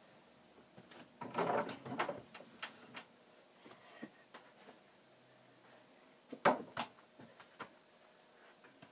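Knocks and thuds from basketball dunk attempts on a hoop: a burst of clattering knocks about a second in, then two sharp loud knocks about six and a half seconds in, with lighter taps between.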